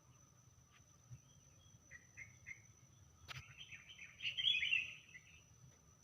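A small songbird calling: three short chirps about two seconds in, then a louder burst of twittering song about four to five seconds in, with a sharp click just before it. A steady thin high tone runs underneath.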